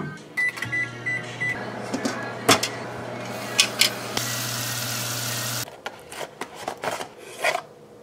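Microwave oven keypad beeps four times, then the oven runs with a steady low hum that stops suddenly about 5.5 seconds in. A rushing, hissing noise joins the hum for its last second or so, and light clicks and knocks of dishes and packaging being handled come and go.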